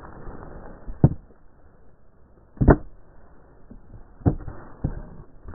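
A few sharp knocks and clunks from hands handling a snowmobile's plastic body and rubber latch close to the microphone. The loudest comes about two and a half seconds in, with others about a second in and twice near the end.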